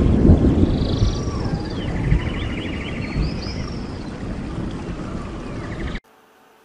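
Produced intro soundtrack: a deep rumble with high, whale-like gliding calls and a buzzing trill over it. It cuts off suddenly near the end, leaving faint room tone.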